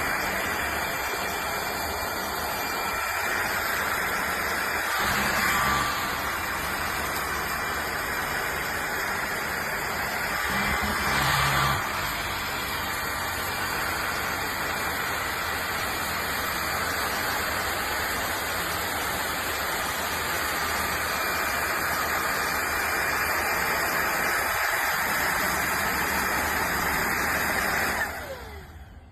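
Bissell PowerClean cordless stick vacuum running steadily, its motor and brush roll giving a continuous whooshing hum that gets briefly louder twice. It switches off abruptly about a second before the end.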